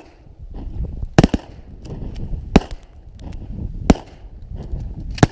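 A string of shotgun shots from several hunters firing together: sharp blasts about every second and a half, with pairs of shots close together just after a second in and at the end.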